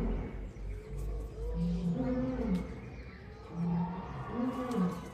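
Cheetah calling as it paces: short, low calls that rise and fall in pitch, repeated roughly once a second.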